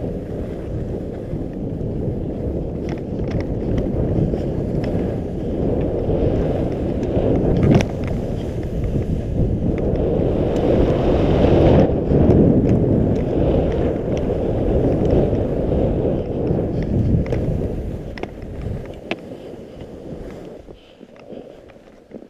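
Wind rushing over a GoPro's microphone while skiing down a groomed run, with skis hissing and scraping on the snow; a harsher scrape swells about halfway through, and the sound dies away over the last few seconds as the skier slows to a stop.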